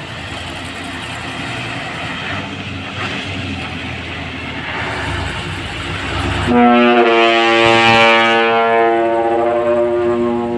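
A heavy tronton truck runs with a steady engine and road noise for about six seconds. Then its multi-tone horn sounds a loud, steady chord for about four seconds and stops near the end.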